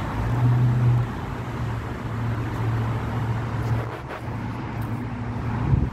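Road traffic on the bridge running past: a steady low rumble that swells in the first second.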